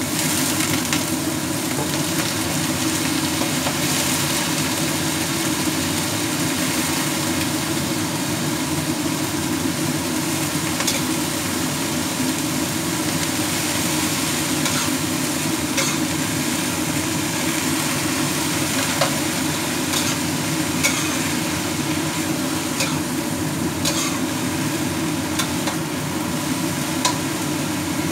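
Rice vermicelli and bean sprouts sizzling as they are stir-fried in a wok, with a spatula knocking and scraping against the pan now and then, especially in the second half. A steady low hum runs underneath.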